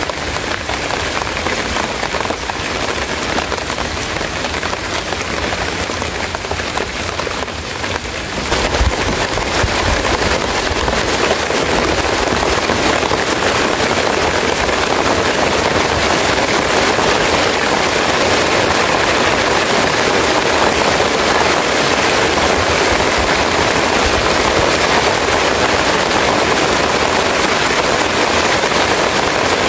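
Heavy rain falling steadily, turning heavier about eight seconds in.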